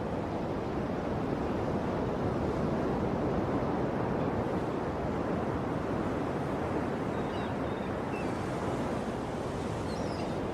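Ocean waves washing steadily on the shore, a continuous surf rush. A few faint high bird chirps come in over it in the last few seconds.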